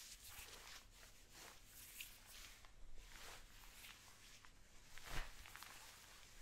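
Faint, irregular rubbing and swishing of hands working hair gel close to the microphone, with a louder stroke about five seconds in.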